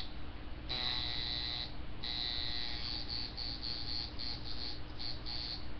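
Coil tattoo machine buzzing at about 5.5 volts, its armature and springs chattering at a high pitch. It is run in short stop-start bursts: about a second on, a brief pause, then a longer run that breaks into several quick on/off spurts. A steady low power-supply hum runs underneath.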